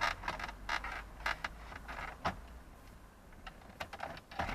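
Plastic dashboard trim in a Toyota Supra Mk4 being slid back into place: a run of short plastic scrapes, clicks and creaks, densest in the first couple of seconds, with a few more near the end.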